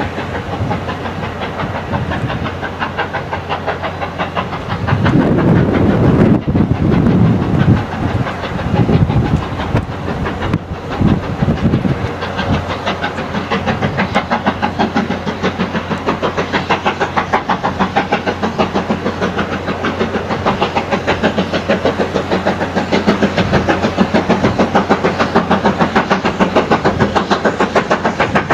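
Two-cylinder steam locomotive, BR Britannia Class 4-6-2 No. 70000 'Britannia', working hard to get a 12-coach train up to speed, its exhaust beating in a quick, even rhythm. There is a louder, rougher stretch about five to twelve seconds in.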